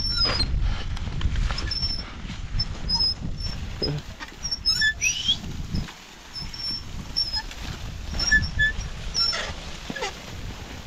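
Ox-drawn plough being worked through dry maize stubble: scraping and crunching of stalks and soil over a steady low rumble, with short high bird chirps scattered through and one rising whistle about five seconds in.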